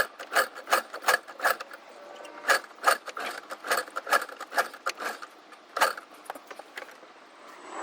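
Rhythmic squeaky mechanical clicking, about two and a half strokes a second, with a brief pause about two seconds in.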